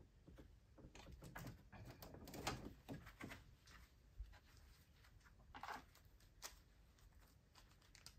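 Near silence with faint rustling and light clicks of hands and gloves working among parts and tools in a car's engine bay, busiest during the first few seconds.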